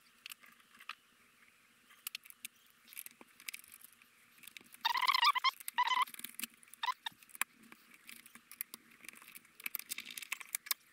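Plastic cover being pried off a Canon V-20 MSX computer's keyboard: scattered small clicks and taps of plastic throughout, with two short squeaks of plastic rubbing about five and six seconds in.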